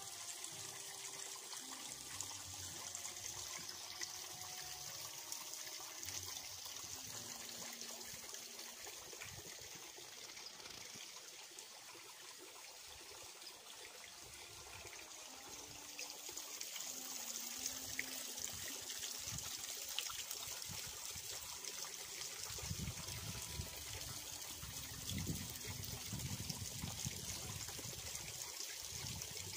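Water trickling steadily, as from a small water feature running over stones. A low rumble joins in for the last several seconds.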